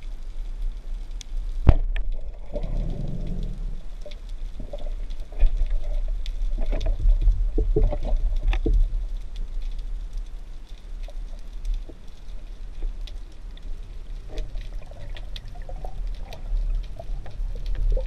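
Underwater sound of a spearfishing dive: a low rumble of water moving against the housed camera, with muffled swishing and scattered sharp clicks, the loudest a single click about two seconds in.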